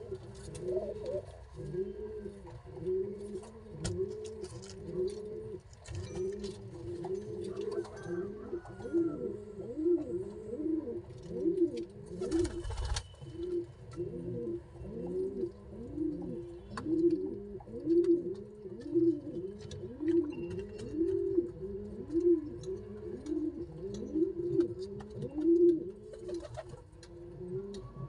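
Domestic pigeons cooing steadily, a low rising-and-falling coo repeated about once a second, with one brief burst of noise about halfway through.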